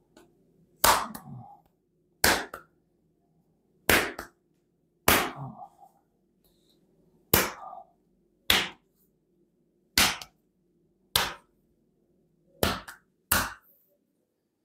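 Hand strikes on a bare back: about ten sharp smacks at uneven intervals, roughly a second apart, part of a folk bone-setter's percussive treatment of the upper back.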